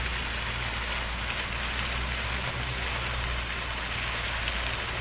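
Storm water gushing up out of the flooded pavement in a geyser about six feet high and splashing back down: a steady rushing hiss of spray, with a steady low rumble underneath. The geyser comes from flooding after a torrential downpour.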